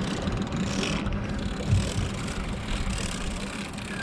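Boat engine idling steadily with an even hum, while the boat holds beside a hooked yellowfin tuna.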